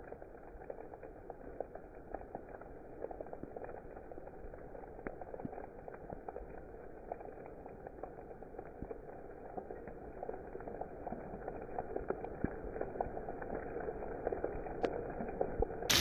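Steady rain falling, a dense patter of individual drops over a soft muffled hiss, growing slightly louder over the stretch. A sudden loud burst of noise cuts in at the very end.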